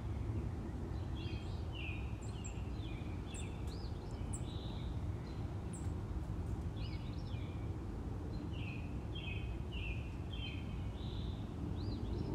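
Small birds chirping repeatedly in short notes over a steady low background rumble.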